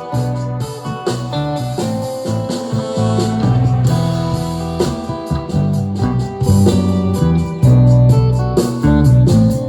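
Instrumental music led by guitar, with bass and a regular beat.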